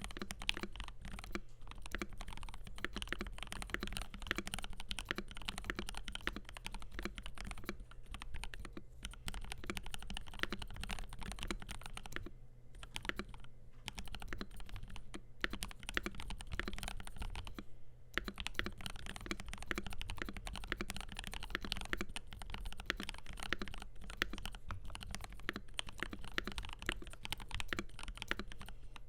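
Continuous typing on a FiiO KB3 mechanical keyboard with lubed, filmed Gateron G Pro 3.0 Yellow linear switches, a stainless steel plate and polycarbonate keycaps: a dense, steady stream of keystrokes with a couple of brief pauses past the middle.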